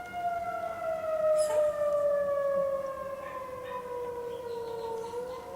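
Outdoor tornado warning siren wailing during its monthly test, its pitch sliding slowly down for about five seconds and then starting to rise again near the end.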